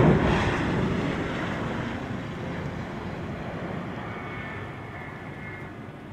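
MiG-31's twin D-30F6 turbofans as the jet lands, a rushing jet noise loudest at the start that fades steadily as the aircraft rolls away down the runway. A faint high whine comes in for a second or two near the end.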